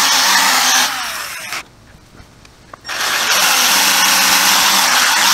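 12-volt handheld polisher spinning its pad on motorcycle paint, a steady whir with the hiss of the pad. About a second in it winds down with falling pitch and stops for just over a second, then starts again and runs steadily.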